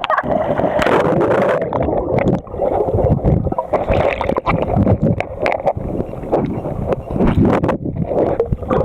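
Lake water sloshing and splashing close against a waterproof camera, with many small knocks and clicks from the camera being handled in the water.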